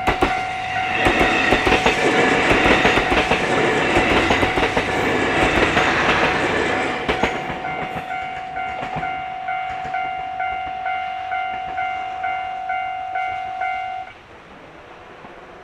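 Railroad crossing warning bell dinging about twice a second over a steady tone, while a train passes with its wheels clacking over the rail joints for several seconds. The bell stops suddenly about fourteen seconds in.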